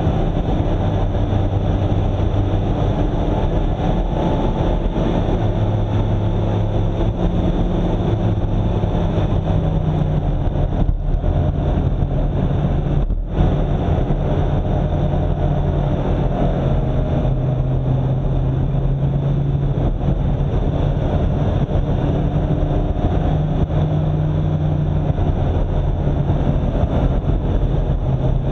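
A road vehicle's engine running steadily on the move, its pitch stepping up and down as the gears change, with two brief dips in the sound about 11 and 13 seconds in.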